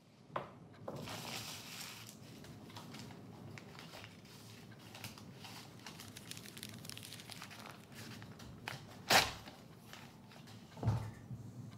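Paper rustling and crinkling, with many small clicks, a sharp snap about nine seconds in, and notebook pages being flipped near the end.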